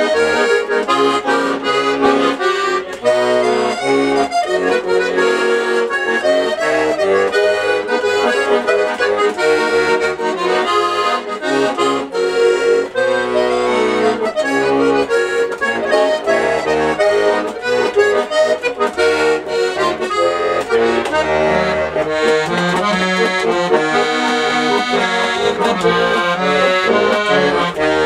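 Bayan, a Russian chromatic button accordion, played solo: a continuous instrumental tune of melody over chords, with no singing.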